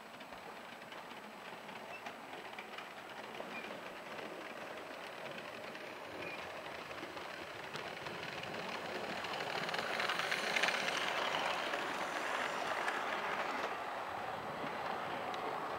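Model railway locomotive and coaches running on the track: a steady rattle and whirr of wheels on rail that grows louder as the train approaches, and is loudest about ten seconds in as the locomotive and coaches pass close by.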